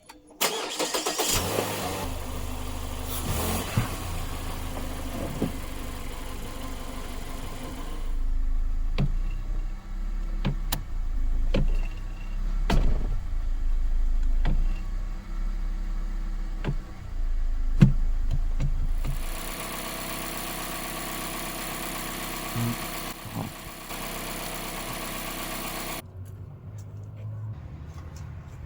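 Car engine starting just after the opening and then running, with a few sharp clicks and knocks through the middle. The sound changes character several times.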